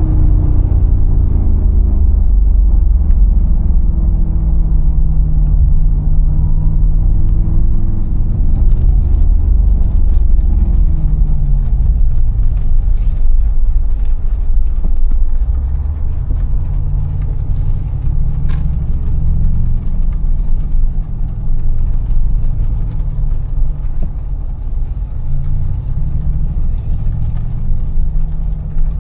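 Mercedes-AMG G63's 4.0-litre twin-turbo V8 running while driving, a deep low drone. Its pitch falls and rises through roughly the first ten seconds, then settles to a steadier, lower hum.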